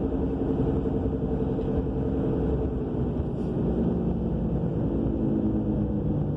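A 2000 Subaru Legacy all-wheel-drive car cruising at about 50 mph, heard with a steady roaring drone from the rear end; the hum's pitch sags slightly in the second half. The noise persists despite a new rear wheel bearing, brakes, calipers and rotors, so its cause is unknown.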